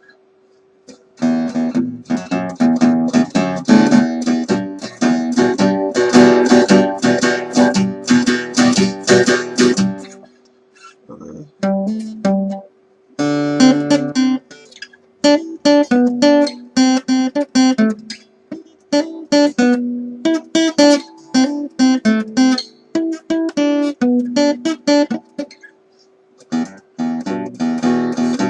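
A freshly rebuilt and tuned guitar being played: picked notes and strummed chords, with a pause about ten seconds in and a brief one near the end, over a faint steady hum.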